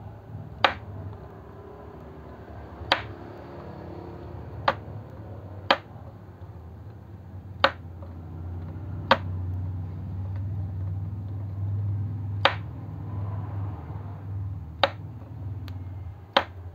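Sharp, separate clicks, about nine at irregular intervals, as a soldering iron is worked on the legs of a chip to desolder it from a circuit board. A low steady hum runs underneath.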